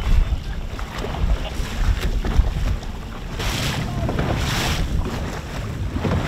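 Wind buffeting the microphone with a steady low rumble, with water splashing and hissing against the side of an inflatable boat in the chop. About halfway through, the splashes come as washes of hiss roughly once a second.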